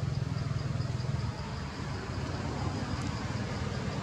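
Low, steady engine rumble like a motor vehicle running, easing off a little over a second in, with a faint high ticking repeating about three to four times a second.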